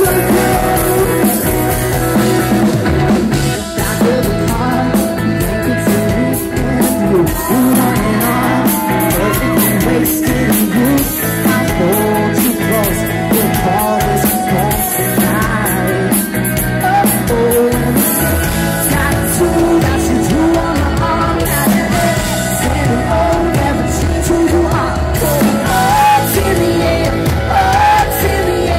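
Live rock band playing loud through a stage PA: electric guitars and drum kit under a male lead singer, heard from within the crowd.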